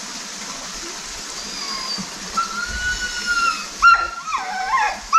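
Steady rush of flowing water. High, gliding whistle-like cries rise over it in the second half, with the loudest sharp cries about four seconds in and again right at the end.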